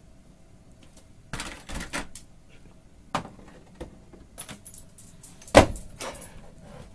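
A large knotted rawhide bone held crosswise in a dog's mouth knocking against a door and clattering the pet-door flap as the dog pushes through. It is a series of irregular knocks, with the loudest about five and a half seconds in, as the bone strikes the door on both sides of the opening.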